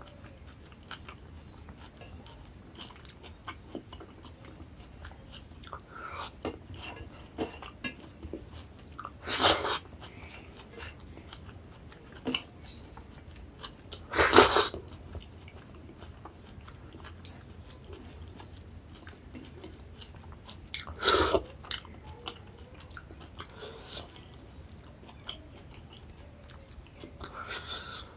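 Close-up chewing and wet mouth sounds of someone eating rice with taro curry and mustard greens, with many small clicks. Three times, several seconds apart, a louder short rushing noise stands out.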